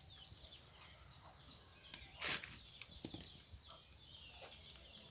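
Quiet, with faint scattered small clicks and a short rustle a little over two seconds in.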